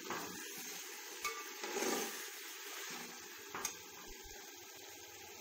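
Chicken frying in its spice paste in a steel pan, with a steady sizzle and a few knocks and scrapes of a stirring spoon in the first four seconds. The masala is being fried down (bhuna) until the chicken is cooked.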